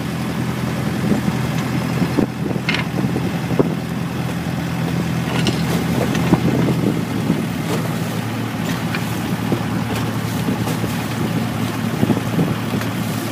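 Boat engine running steadily at low speed, a steady low hum, with a few light knocks.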